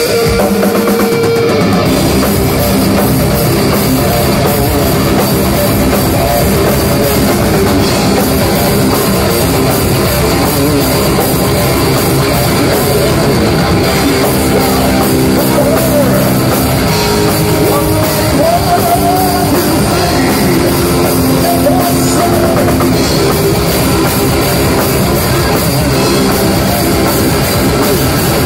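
Heavy metal trio playing live at full volume: distorted electric guitar riff over bass guitar and a pounding drum kit, heard from among the audience in a small club.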